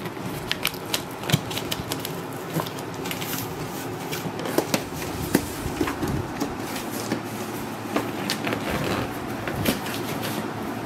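Irregular light clicks, knocks and rattles of a box and its packaging being handled and pulled open.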